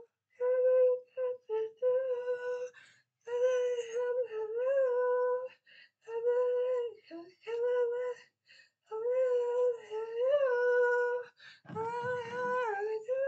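A young person singing unaccompanied in short phrases held on nearly one high pitch, with brief breaks between them and no clear words. A low bump near the end.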